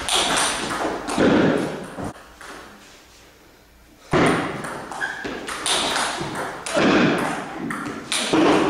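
Table tennis ball knocking against bats and the table in rallies, echoing in a large hall, with a lull of about two seconds between points.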